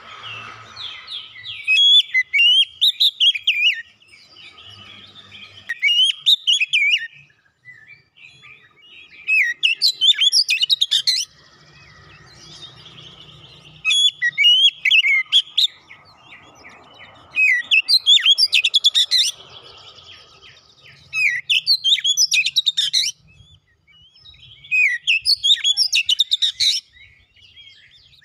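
Oriental magpie-robin singing loud phrases of rapid, varied whistles and chattering notes, about seven bursts of a second or two each with short pauses between.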